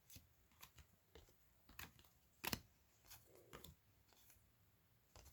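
Faint, irregular flicks and clicks of trading cards being flipped through by hand, with a sharper snap about two and a half seconds in.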